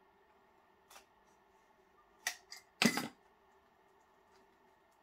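Plastic shrink-wrap being cut open on a book: a couple of small clicks, then a short crackle of the film just under three seconds in, the loudest sound.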